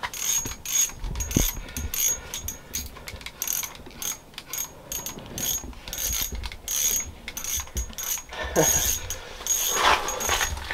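Ice-fishing reel ratcheting in short, irregular bursts of clicks while a hooked bass is fought up to the hole.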